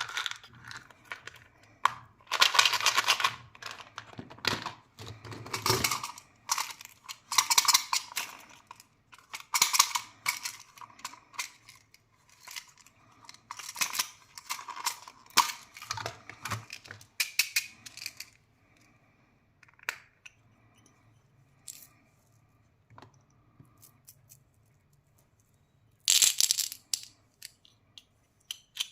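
Plastic candy wrappers and packaging crinkling and tearing as they are handled and opened, with small hard clicks and clatters. The crinkling comes in bursts, goes quiet for several seconds past the middle, then starts again with one loud burst near the end.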